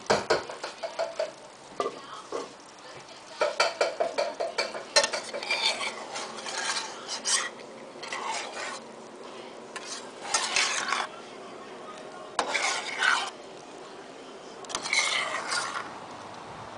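A metal spoon stirring and scraping corn in a stainless steel saucepan, in several short bursts of scraping a second or so long. Quick runs of metallic clicking come in the first few seconds.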